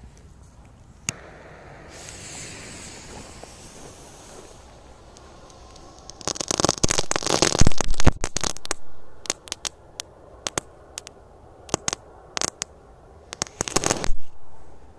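A small ground firework: a hissing fuse, then a dense burst of loud crackling pops, scattered single sharp cracks, and a last loud cluster of cracks near the end.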